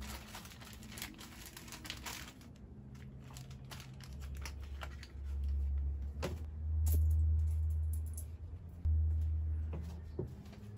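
Small items being handled and set down on a shelf: rustling and crinkling of packaging, with a few light knocks and clicks as bottles and boxes are put in place.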